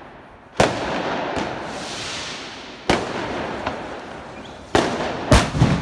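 Five sharp firework bangs echoing between apartment buildings: one just under a second in, one about three seconds in, and three close together near the end. Each bang trails off in a long echo.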